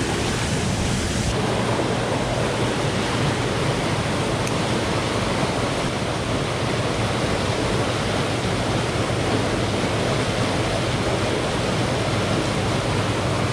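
Churning tailwater rushing steadily along the base of a hydroelectric dam, stirred up by water being released through the dam's generators.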